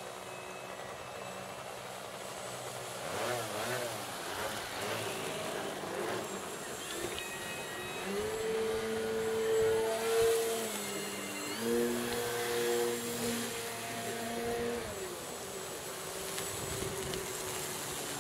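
Electric RC aerobatic plane's brushless outrunner motor and 14x6 propeller droning overhead, its pitch stepping up and down several times in the middle as the throttle changes. The long ribbon streamers trailing behind the plane add a fluttering buzz.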